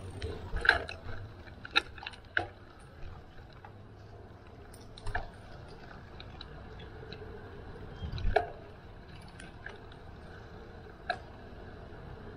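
Bicycle riding over a rough path: a low steady rumble with scattered clicks and knocks, the loudest about a second in and again about eight seconds in.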